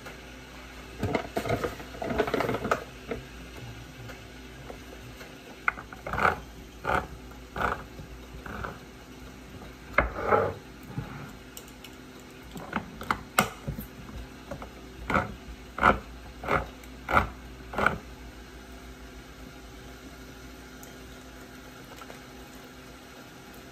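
Pancake mix scooped with a metal measuring cup and poured into a plastic tub, then a handheld can opener cranked around metal cans: two runs of sharp clicks, about three every two seconds, with a short pause between them.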